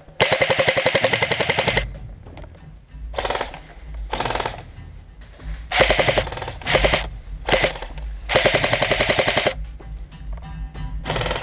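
Airsoft electric rifle (AEG) firing on full auto in repeated bursts, a fast even rattle of shots with the gearbox whining. A long burst comes at the start and another about two-thirds through, with several short bursts between.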